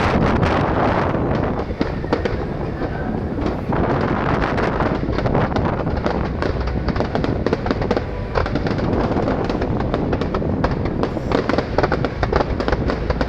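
Fireworks display going off in a dense, continuous barrage of rapid pops, crackles and bangs.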